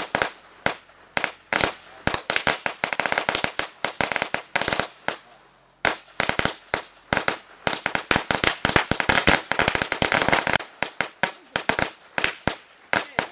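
A long string of firecrackers going off in a rapid, continuous run of sharp bangs, with a short lull about six seconds in before the popping picks up again.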